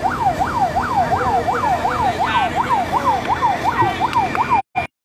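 Fire engine siren on a fast yelp, its pitch sweeping up and down about three times a second. The sound cuts out abruptly near the end.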